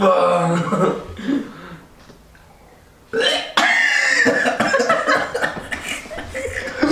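A man belching and gagging on a revolting blended drink: a loud belch at the start, then, about three seconds in, harsh retching over a plastic bucket.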